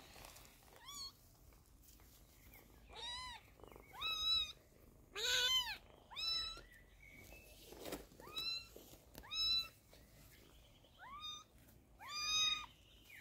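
Kitten meowing over and over: about nine short, high meows, each rising and then falling in pitch.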